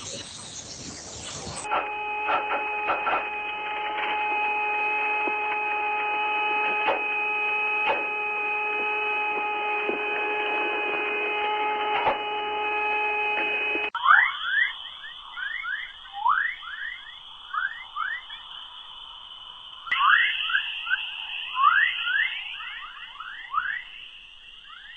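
Electronic tones, cut off sharply above the upper treble. First a steady chord of several held tones with faint clicks, then, about halfway through, a run of quick falling chirps, several a second, over a steady high hum.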